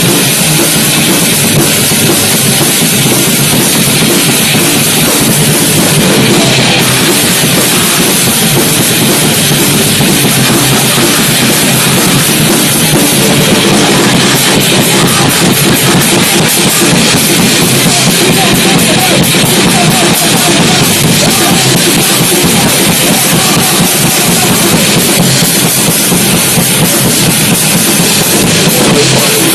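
Loud, dense heavy rock or metal music with a pounding drum kit, played live and staying at one steady, saturated loudness throughout.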